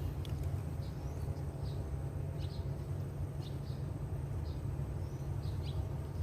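Short bird chirps repeating every half second or so, over a steady low rumble.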